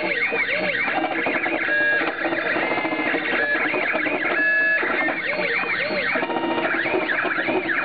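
Stepper motors of a homemade CNC router driving its axes through a test program at 900 mm per minute: a run of musical whines that rise and fall in pitch as each move speeds up and slows down, with short steady tones in between.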